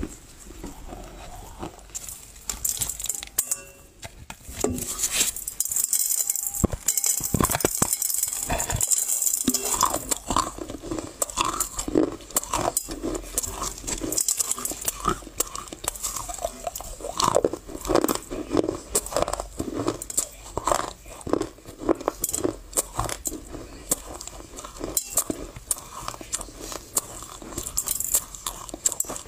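Dry loess clay being bitten and chewed: dense crunching and crackling, with light clinks from the steel bowl beneath.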